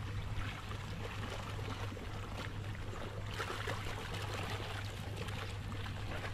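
Water splashing and sloshing as a large carp is lifted out of a floating net cradle by a wading angler, with the heaviest splashing about three and a half seconds in as the fish comes clear of the water. A steady low hum runs underneath.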